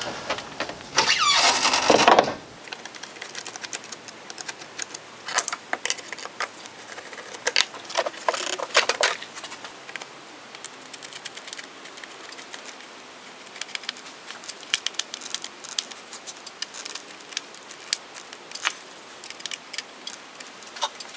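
A car hood is raised with a loud, noisy sweep lasting about a second. This is followed by scattered small clicks and rattles as a screwdriver tightens a hose clamp on a rubber coupler at the turbo inlet.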